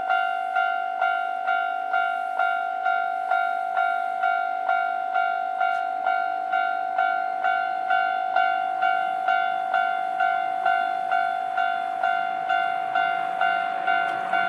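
Japanese railway level-crossing warning bell ringing in an even 'kan-kan' rhythm, about two decaying strikes a second, signalling that a train is coming. A low rumble rises under it near the end.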